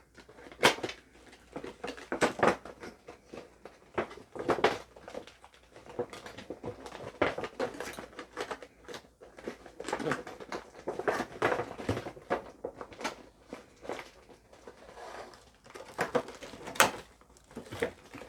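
Packaging of a boxed makeup brush set being cut open and unwrapped by hand: irregular rustling, crinkling and clicks of plastic wrap and cardboard, with a few sharper taps and knocks.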